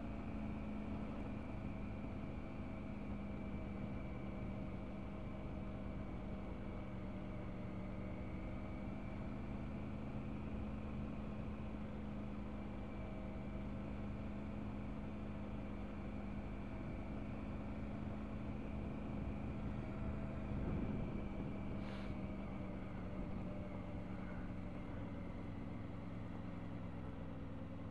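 Triumph Tiger 900's three-cylinder engine running steadily at low revs, with a brief rise in revs about twenty seconds in and a single sharp click shortly after.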